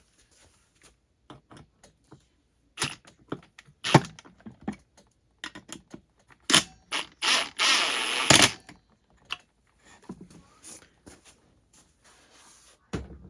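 Small hand tools and metal parts being picked up and handled on a workbench: scattered clicks and clatters, with a longer rattle about seven to eight seconds in.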